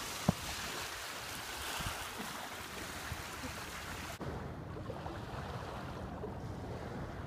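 Small waves washing onto a sandy shore, with wind on the microphone, making a steady hiss. A single sharp click comes shortly after the start, and about four seconds in the high hiss drops away suddenly, leaving a lower wind rumble.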